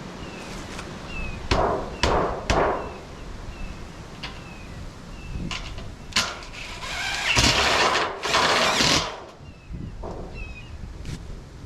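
Power drill driving screws into lumber, run in short bursts with the longest and loudest about halfway through, among a few sharp knocks of wood and tools being handled. A bird chirps faintly and repeatedly in the background.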